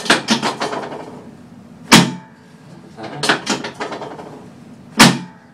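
Chiropractic table clacking during a side-lying lower-back adjustment. A run of quick clicks at the start, a loud sharp clack about two seconds in, another run of clicks, then a second loud clack near the end.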